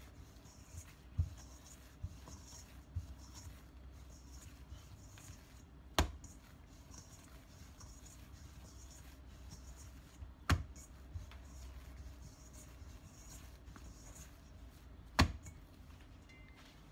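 Hands kneading soft bread dough in a stainless-steel bowl: quiet rubbing and pressing, with three sharp knocks about six, ten and fifteen seconds in.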